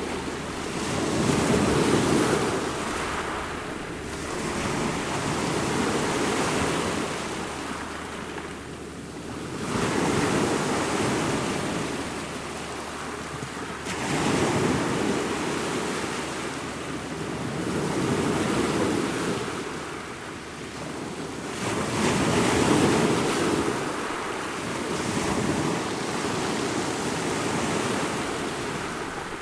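Ocean waves breaking and washing on the shore in slow surges, each swell rising and falling over a few seconds, about seven times.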